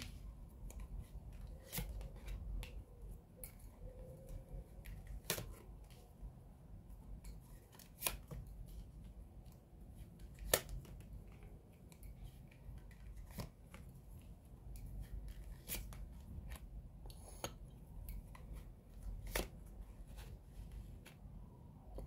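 Tarot cards being dealt one by one onto a cloth-covered table, with a sharp snap each time a card is set down, about every two to three seconds.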